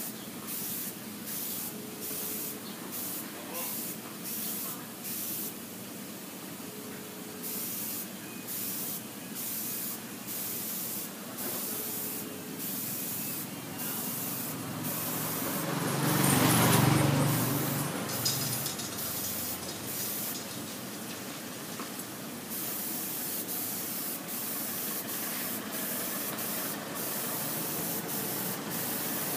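Aerosol spray paint can hissing in short bursts, about two a second, with longer sprays near the end, as the paint is laid onto a wall in soft shading. About halfway through, a louder low rumble swells and fades.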